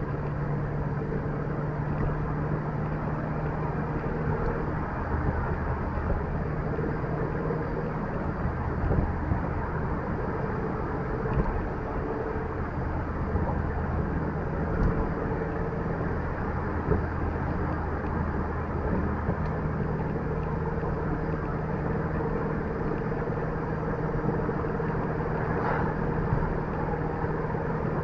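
Car being driven, heard from inside the cabin: a steady engine hum under road and tyre noise. The engine note shifts in pitch a couple of times.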